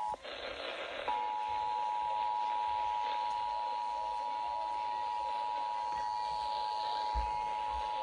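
Emergency Alert System attention signal, the steady two-tone 853 Hz and 960 Hz alarm that comes before the test message, played through a RadioShack weather-alert clock radio's speaker. It is broken by about a second of hiss near the start, then holds steady.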